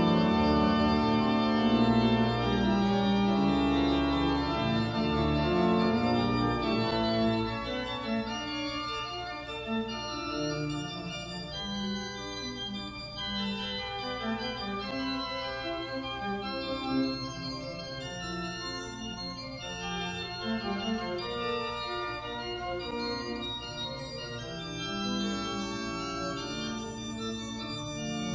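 Organ music: slow, sustained chords, fuller and louder for about the first seven seconds, then softer.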